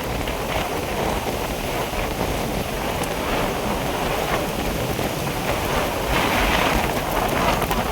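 Storm wind and rain, a steady rushing with wind buffeting the microphone; a gust swells about six seconds in.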